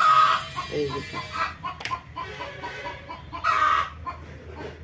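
Domestic hens clucking: a run of short, evenly spaced clucks, with two louder, drawn-out calls, one at the start and one about three and a half seconds in.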